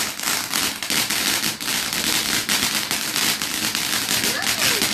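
Garden firework crackling densely and hissing without a pause: a rapid, continuous run of small crackles.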